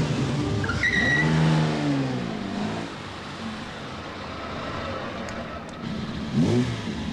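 Car engine revving, its pitch rising and falling, with a brief high tone about a second in and a sharp rising rev near the end.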